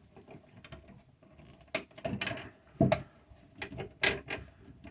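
Hand wire strippers working on the insulation of 12-2 electrical cable: a few separate sharp clicks and snaps with quiet between, the loudest about three seconds in.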